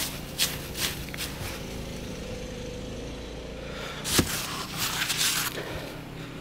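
Crunching and scraping in deep snow, with a sharp knock about four seconds in, over a steady low hum.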